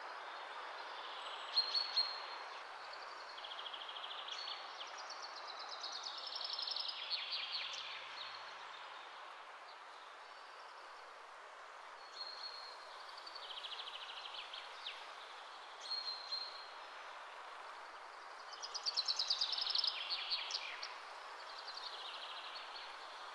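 Birds chirping and singing over a steady background hiss. There are short high chirps throughout, and twice there is a louder falling trill of rapid notes, a little before the middle and again near the end.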